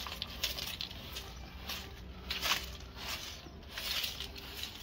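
Push broom scraping across a concrete floor in a series of short strokes, sweeping dry leaves that rustle as they are pushed into a pile.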